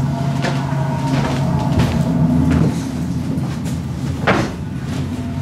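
A low, steady rumbling drone with scattered knocks and clatters over it; the sharpest knock comes about four seconds in.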